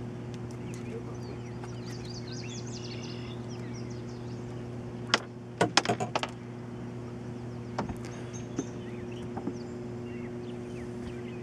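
A steady low hum runs under everything, with brief bird chirps about two seconds in. About five seconds in comes a sharp knock, then a quick run of clatters and a few lighter ticks, as a smallmouth bass is lifted from the landing net and unhooked in the boat.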